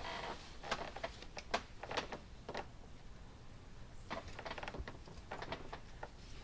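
Light clicks and taps of plastic electrical connectors and wiring being handled and pushed together, scattered irregularly with a short cluster about four seconds in.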